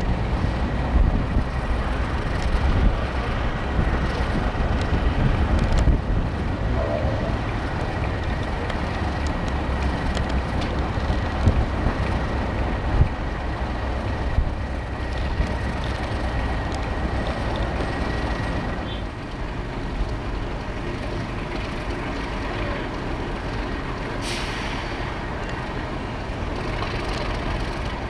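Class 37 diesel locomotive's English Electric V12 engine running steadily at a station, with a thin high whistle over the engine note. A short hiss of air comes in near the end.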